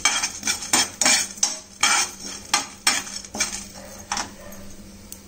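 Steel spoon scraping and knocking against a non-stick frying pan, about three strokes a second, stirring roasting chana dal, coriander seeds and cumin. The stirring stops about four seconds in.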